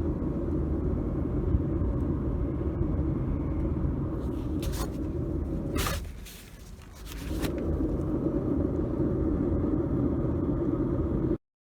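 A workshop power tool's motor running steadily with a low rumble while metal is worked. The sound dips about six seconds in and comes back a second or so later, with a few sharp clicks around the dip.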